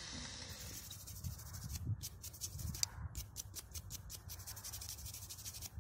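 Faint, irregular rubbing and scraping as soil is rubbed off a freshly dug metal spoon by hand.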